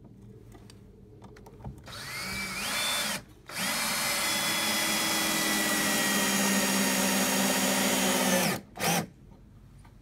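Cordless drill driving screws through an old wooden board into the chair's wooden legs. The motor whines up about two seconds in and stops briefly, then runs steadily for about five seconds, its pitch sagging slightly. A short final burst comes near the end.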